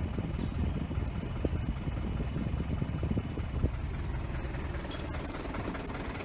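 Isuzu D-Max pickup engine idling steadily, with a few light clicks about five seconds in. The air conditioning is switched on but gives no cooling because the compressor's magnetic clutch is getting no current.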